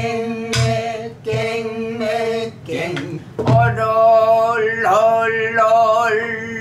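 A woman chanting the jungmori drum syllables "dung dung dung, kkaenggaeng maenggaeng" in a held, sung voice, with low strokes on a buk barrel drum under it: three in the first second and a half and one more about three and a half seconds in.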